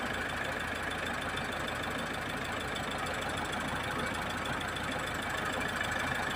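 Mitsubishi Triton diesel engine idling steadily under the open bonnet, its timing belt freshly re-timed and crankshaft pulley replaced: the repair for the low-power fault where the revs would not climb past 1500 rpm.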